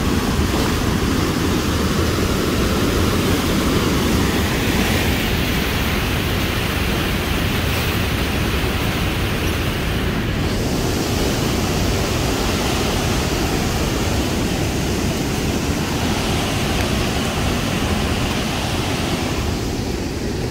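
Wind buffeting the microphone and rushing water over the steady drone of a mud motor's single-cylinder gas engine, a small aluminum jon boat under way.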